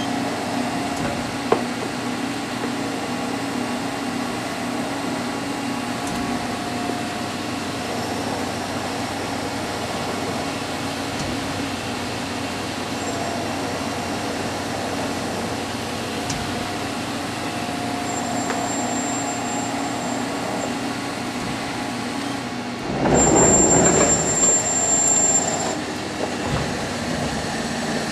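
Machine-shop machinery running with a steady hum and faint tones. About 23 seconds in, a louder rush of noise with a high whine lasts a couple of seconds, then settles back to the hum.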